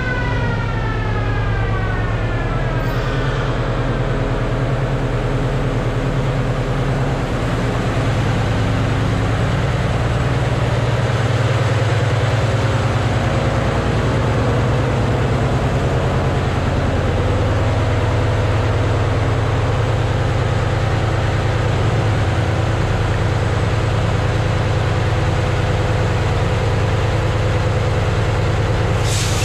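Ship's engine-room machinery running, a loud steady low hum. A falling whine dies away in the first few seconds.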